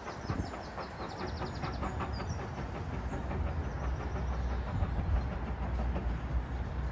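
Andrew Barclay narrow-gauge steam locomotive and its train running along the track: a steady low rumble with a quick run of rapid wheel clicks in the first few seconds.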